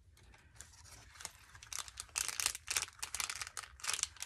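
Craft materials being handled on a table: irregular crinkling and rustling, quiet at first and busier from about a second and a half in.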